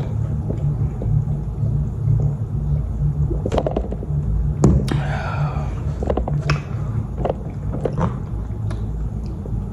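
Eating sounds from a bowl of ramen noodles: a handful of sharp clicks and a brief hiss in the middle, over a steady low hum.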